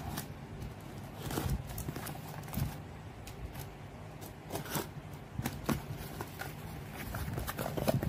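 Cardboard shipping box handled by hand and opened: irregular light knocks, taps and scrapes, with a bubble mailer pulled out of the box near the end.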